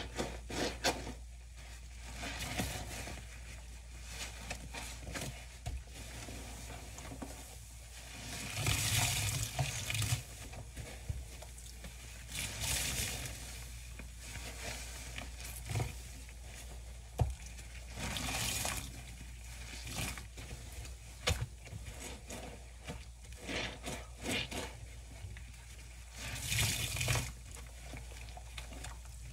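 Soapy bath sponges squeezed and squished by rubber-gloved hands in a stainless steel sink: soft wet squelching, with several louder gushes of sudsy water as sponges are wrung out.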